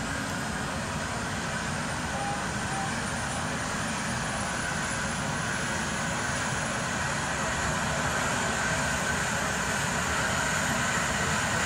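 Twin-turbine Airbus (Eurocopter) H135 helicopter starting up, its rotor spinning up. A steady turbine whine rises slowly in pitch and loudness.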